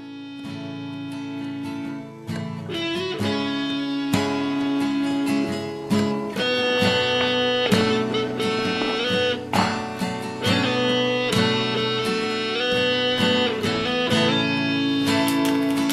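Instrumental background music led by plucked guitar. It starts quietly and grows louder over the first two seconds.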